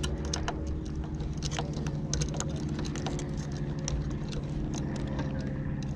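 A steady low engine hum, like a motorboat running, under scattered sharp clicks and crinkles from hands working the sailboat's rigging and laminate sail.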